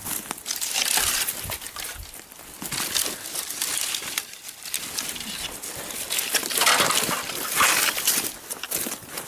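Rustling and crackling of dry brush, with many quick clicks and snaps, loudest about a second in and again in the second half.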